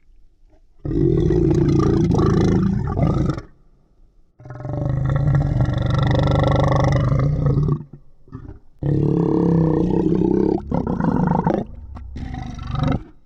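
Monster growl sound effect: three long, deep growls of about three to four seconds each, with short pauses between them.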